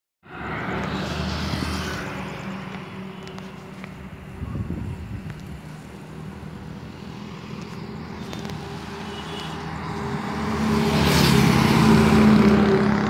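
Road traffic passing close by on a highway bypass. One vehicle goes by near the start, then a louder one approaches with a steady engine hum and rushes past near the end.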